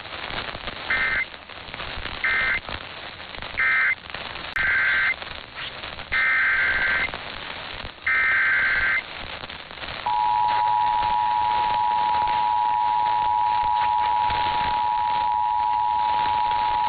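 Emergency Alert System data tones over radio hiss and crackle. First come three short buzzy end-of-message bursts, then three longer SAME header bursts for a new alert. About ten seconds in, the steady two-tone EAS attention signal begins and holds.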